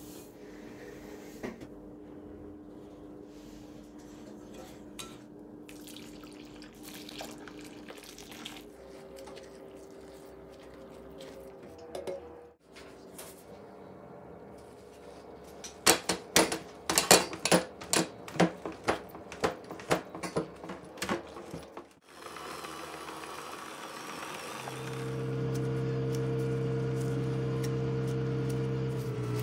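Kitchen food-prep sounds: a light hiss of fine dry bulgur poured into a glass bowl, then a run of sharp squirts from a hand-pumped spray bottle misting the bulgur dough, about two a second and the loudest part. Near the end a strong steady hum sets in.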